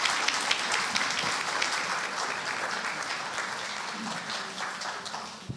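Audience applauding: many hands clapping together, loudest at first and slowly dying away.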